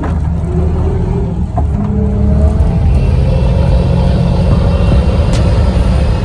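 Bus engine running loud and close, a deep steady rumble with the engine note shifting up a little partway through.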